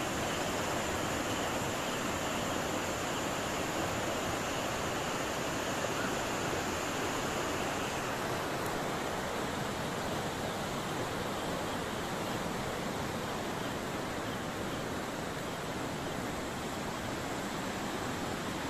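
Muddy river in flood rushing past: a steady, unbroken rush of water.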